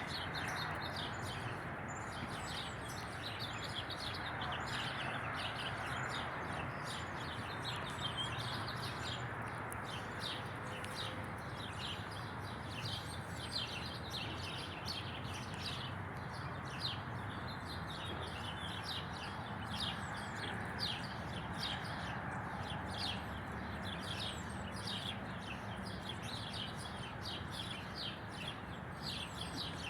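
A flock of small birds chirping and twittering continuously, many short overlapping calls, over a steady low background hum.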